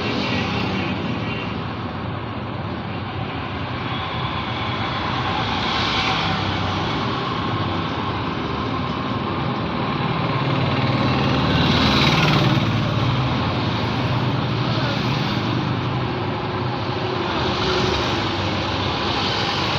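Continuous road traffic with engines running and tyre noise. Several vehicles swell up and pass by in turn; the loudest, with a deep engine hum, passes about twelve seconds in.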